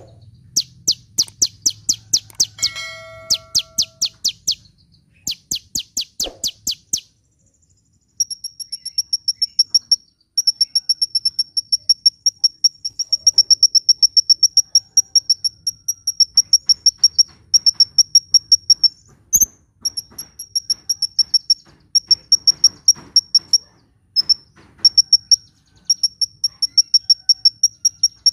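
Sunbird (kolibri) singing. First comes a series of sharp, rapidly repeated chipping notes. From about eight seconds in, it gives long, very fast, high-pitched trills broken by short pauses.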